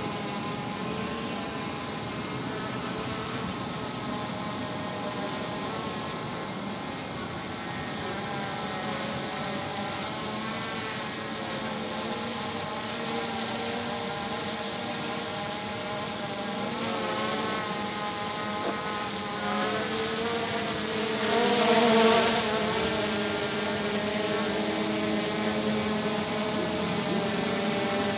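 Hobby drone in flight: a steady buzz from its propellers whose pitch wavers up and down as the motors keep adjusting. It swells louder for a moment about three-quarters of the way through.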